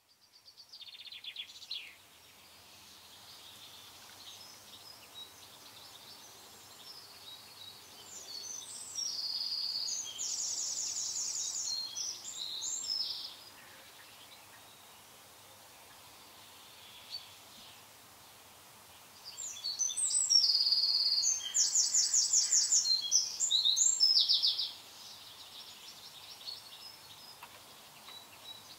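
A small songbird singing: a short high call near the start, then two long bouts of rapid, high trilled phrases about ten seconds apart, over a faint steady hiss.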